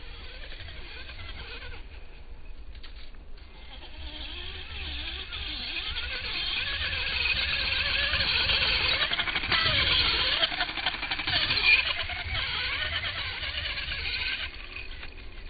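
Electric RC dune buggy on a 3S LiPo pack being driven hard over sand: its motor whines up and down in pitch with the throttle while the tyres spray sand with a hiss. It grows louder as the car passes close, loudest about ten seconds in, then fades.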